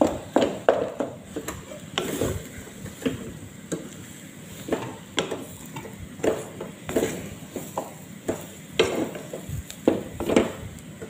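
Wooden spatula stirring and mashing boiled, spiced potato in a nonstick pot. Irregular scrapes and soft knocks against the pot come a couple of times a second.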